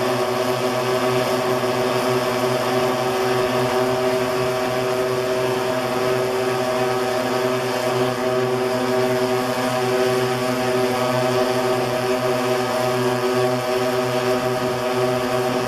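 The DLE-20 two-stroke gasoline engines of a giant-scale B-24 model bomber running together at a steady speed during a ground engine check, with propellers turning.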